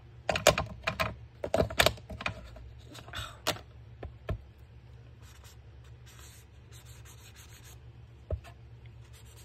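Paper being rubbed and scraped by hand on a craft table: a run of brisk scraping strokes over the first few seconds, then softer rubbing, with a single knock near the end.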